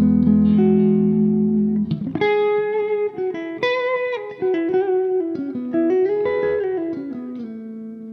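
1991 Ibanez Universe UV7P seven-string electric guitar on its split-neck-and-middle pickup selection: a held chord rings for about two seconds, then a run of single notes, ending on a sustained note.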